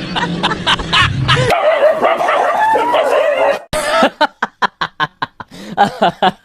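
Dog barking in a quick run of short, sharp barks, about four a second, starting about halfway in.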